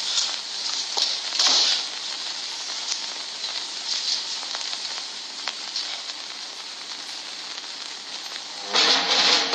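Steady hiss of an old film soundtrack, with a few faint clicks. Music starts near the end.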